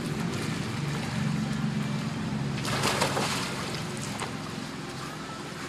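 A dog splashing into a swimming pool off a floating pool mat: a short burst of splashing about three seconds in, then quieter water movement as it swims. A steady low hum runs underneath and fades near the end.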